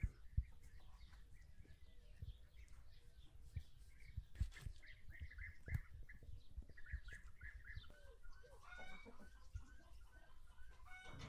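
Faint bird calls: a run of short, quickly repeated high chirps through the second half, some gliding downward near the end, with a few soft knocks scattered among them.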